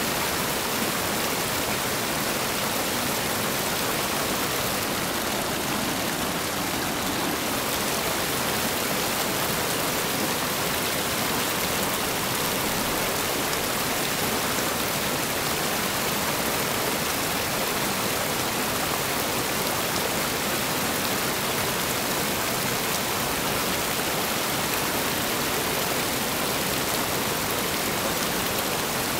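Whitewater rapids rushing over boulders and rock ledges: a steady, unbroken rush of water.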